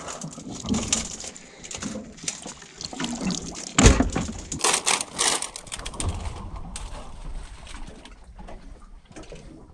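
Water splashing and sloshing in a run of irregular splashes, with one loud knock just under four seconds in; it eases off in the second half.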